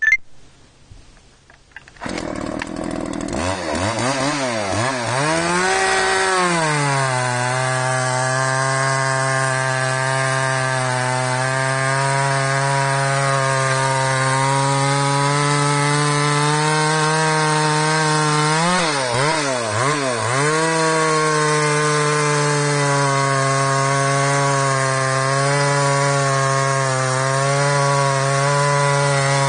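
Homelite Timberman 45 chainsaw's 45cc two-stroke engine revving up and down from about three seconds in, then settling to a steady, lower-pitched drone as the chain cuts into a log. About two-thirds through, the revs swing up and down again before it settles back into the cut.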